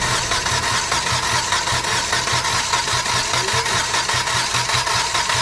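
Hyundai Xcent diesel engine being started after it was refitted, running on or turning over with a slow, uneven beat rather than a smooth idle. Air has yet to be cleared from the fuel system.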